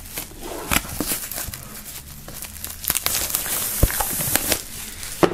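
Plastic shrink-wrap film being peeled and torn off a cardboard box, crinkling and crackling irregularly, with a denser, louder stretch of crinkling about three seconds in.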